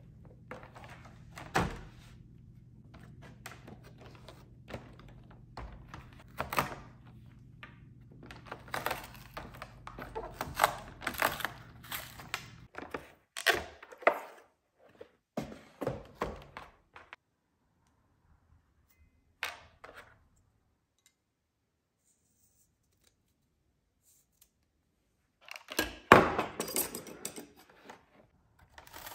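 Hands unpacking a knife set from its cardboard-and-plastic blister card on a wooden table: irregular knocks, clicks and thunks of packaging and metal knives being handled and set down. The handling stops for several seconds midway and comes back near the end with a louder cluster of knocks.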